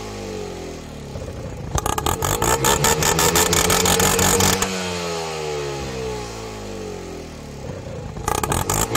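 Tuk-tuk engine being revved with a homemade exhaust back-fire kit: a spark plug in the tailpipe ignites the exhaust into flame. About two seconds in comes a burst of rapid crackling bangs from the exhaust while the revs are held high. The engine then winds down in falling pitch, and the rapid bangs start again near the end.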